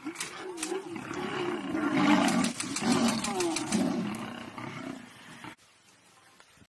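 A large animal roaring: low, drawn-out calls with a wavering, falling pitch, loudest in the middle, that cut off suddenly about five and a half seconds in.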